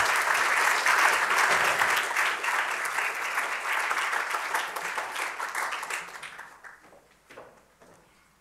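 Audience applauding, dying away after about six seconds, with a couple of last scattered claps near the end.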